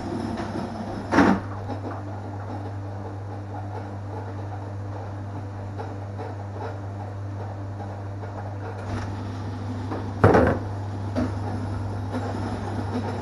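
Mendes 90 Bowlingo arcade pinsetter cycling with a steady motor hum and mechanical rattle as its deck picks up and resets the pins. There is a knock about a second in and a louder clunk about ten seconds in.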